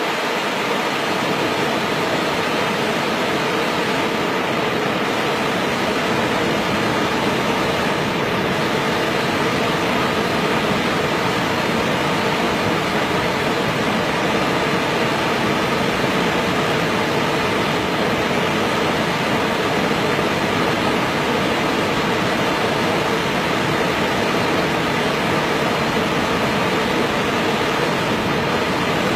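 Water rushing steadily over rocks in a small waterfall, a constant unbroken noise.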